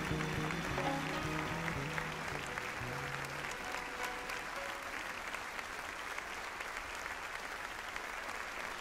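Audience applause, with the band's last low bass notes dying away about three and a half seconds in.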